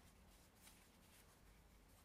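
Near silence: faint room hiss with a soft, brief scratch about two-thirds of a second in.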